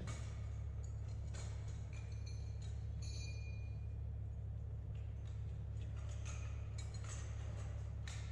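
Light metallic clicks and clinks as the TerrAdaptor's metal leg tubes and clamps are handled and fitted together, with a brief high squeak about three seconds in, over a steady low hum.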